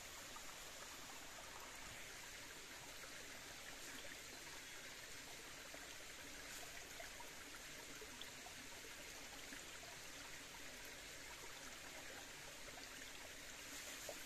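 Small, shallow forest stream flowing with a faint, steady rush of water.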